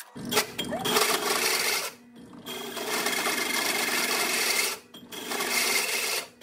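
Benchtop drill press running a hole saw that grinds and rasps into a metal plate, lubricated with WD-40. The cut goes in three stretches, broken twice by short gaps.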